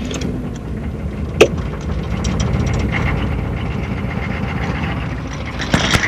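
Chevy 6.5L V8 diesel engine running steadily just after a hard cold start at about −5 degrees with no block heater, heard from inside the cab. A single sharp click about a second and a half in is the loudest sound.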